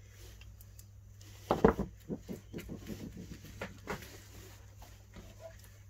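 Sharp cable knife cutting through the plastic outer sheath of an electrical cable: a run of quick scraping cuts, about four a second, starting about a second and a half in, the first the loudest, then a few faint scratches.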